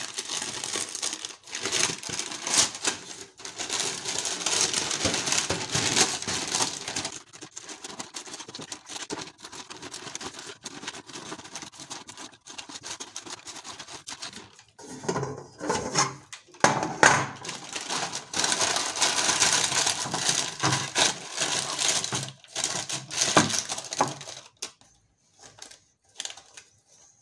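Baking paper rustling and crinkling as it is handled, folded and cut with kitchen scissors, with many short sharp clicks among the crinkling.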